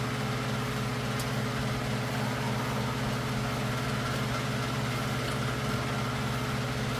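Steady mechanical hum with a few fixed tones, unchanging throughout, and one faint click about a second in.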